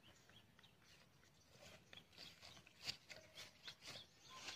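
Near silence: faint background noise with scattered soft clicks.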